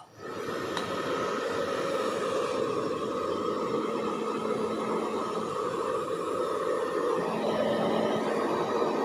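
Steady rushing noise with a faint hum, switched on suddenly just after a click, like a hair dryer or running water.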